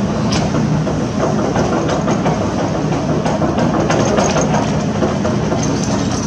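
Heavy construction machine's diesel engine running steadily, with short metallic knocks and clanks scattered over it.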